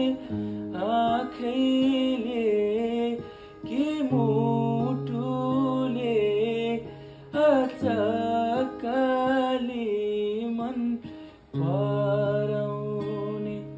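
A man singing a verse of a Nepali song in a sliding, ornamented melody over acoustic guitar chords. The voice and guitar drop out briefly near the end, then the guitar chord comes back.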